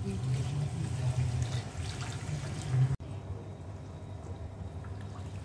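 Water pouring and sloshing into a steel kadhai of fried fish pieces and masala, with a spoon stirring. About three seconds in the sound breaks off abruptly and a steadier, quieter noise follows.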